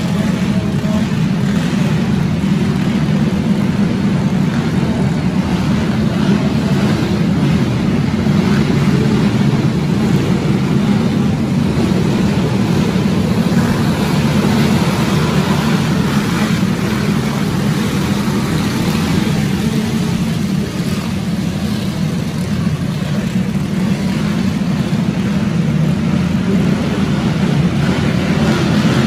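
A field of dirt-track racing karts running together on the track: a loud, steady drone of several small engines with no break, heard inside an enclosed arena.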